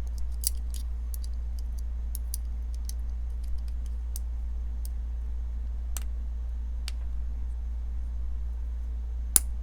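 Scattered light clicks and taps of the Peña Apache folding knife's small parts as its handle halves, pivot pin and washer are fitted back together, with one sharper click near the end. A steady low hum lies underneath.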